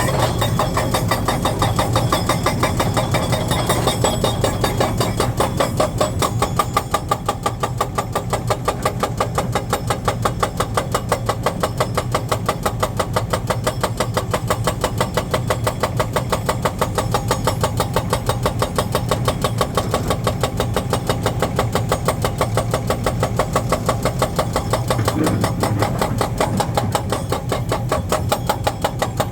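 Heavy diesel engine of construction machinery running steadily, with an even, rapid pulse.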